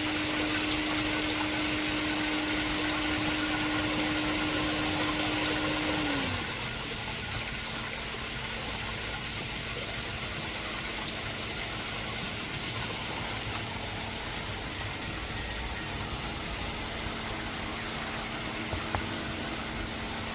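Pool pump motor running steadily, pushing water through the filter during backwash and rinse. About six seconds in its hum drops in pitch and gets quieter, then runs on steadily.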